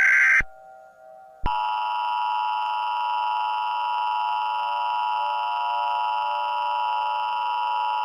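The tail of an Emergency Alert System SAME header data burst, which cuts off about half a second in. After a gap of about a second, the EAS two-tone attention signal (853 and 960 Hz sounded together) starts: a loud, perfectly steady tone announcing an Emergency Action Notification.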